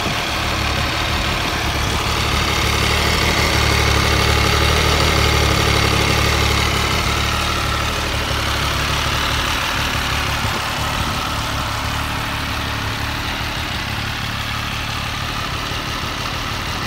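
MV Agusta F3 800's 798 cc inline three-cylinder engine idling steadily. It grows a little louder for a few seconds about three seconds in.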